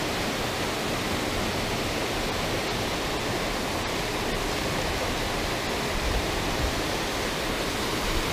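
Water pouring over a small concrete spillway weir, a steady rushing sound.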